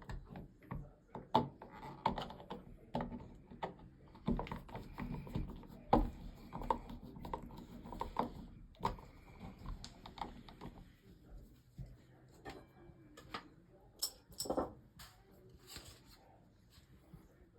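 Irregular small clicks and knocks of hard plastic parts being handled and pressed into place as a car's dashboard trim and switch panel is refitted and lined up.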